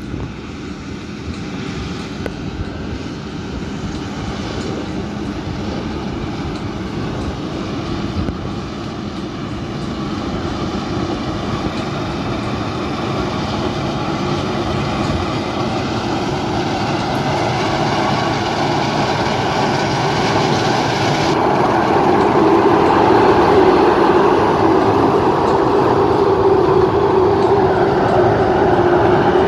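Engine and threshing of a rice combine harvester running steadily, getting louder over the second half as the machine comes closer.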